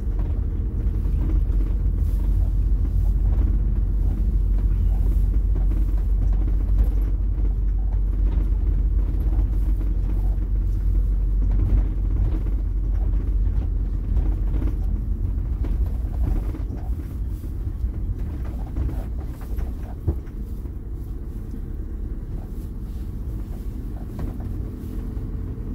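Motorhome engine and road rumble heard from inside the cab while driving, a steady low drone that eases off about two-thirds of the way through.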